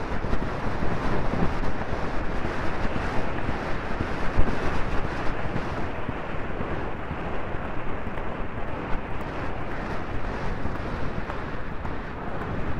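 Wind rushing steadily over the microphone of a rider's helmet camera while the horse gallops.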